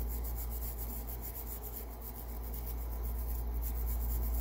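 A small brush scrubbing the metal contacts of a microphone's push-to-talk switch in rapid, even strokes, to clear off leftover grime and cleaner. A steady low hum runs underneath.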